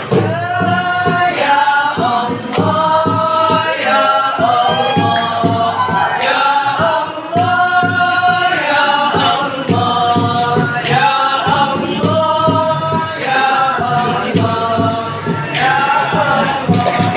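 A marawis ensemble of boys singing an Islamic devotional song together in long held phrases, with only occasional strokes on the hand drums and tambourine between the sung lines.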